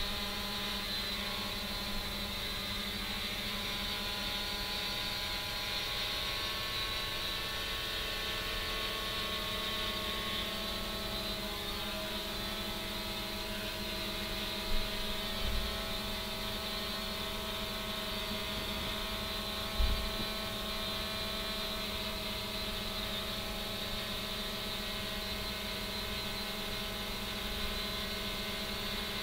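3DR Iris+ quadcopter's electric motors and propellers droning steadily in flight, heard through the onboard camera's microphone, with a slight shift in pitch partway through. A few brief low thumps come around the middle.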